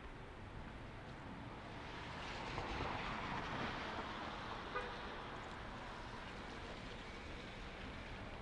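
Street traffic on rain-wet pavement: a vehicle's tyres hiss past, swelling for a few seconds and then fading back to a steady wash of road noise.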